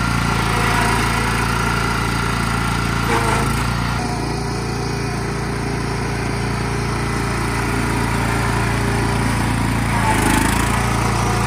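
Cub Cadet riding lawn mower's engine running steadily while the mower is driven along.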